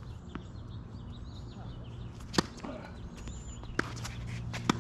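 Tennis ball hit with racquets three times in a rally, sharp pops a little over a second apart, the first and last loudest.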